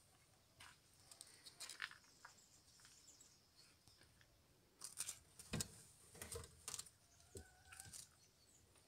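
Faint scattered scratches and light knocks as a pet ferret moves about in a wooden box, with a brief faint high note near the end.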